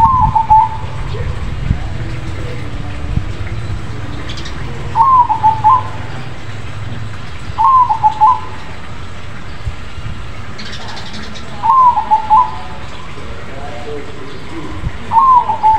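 Crossbred zebra dove (perkutut) singing: five loud, short phrases of quick pulsed coos, repeated every three to four seconds.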